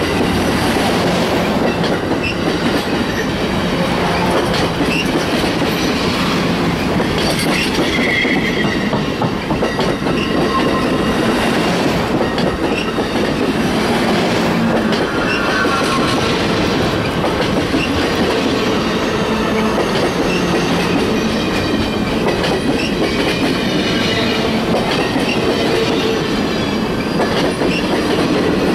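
Amtrak passenger cars rolling past at speed close to the track: a loud, steady rush of steel wheels on rail with clattering over the rail joints.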